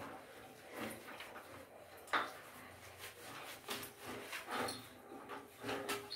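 Faint wet rubbing and small splashes as a soaked cat's fur is lathered by hand, with one sharp knock about two seconds in.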